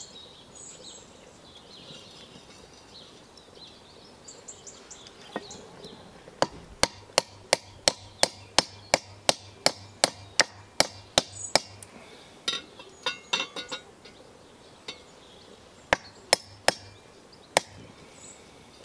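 Sharp knocks of a blade or tool jabbed down into a burning fatwood stump fire to stoke it, about three a second for several seconds, then a quick cluster and a few scattered ones near the end.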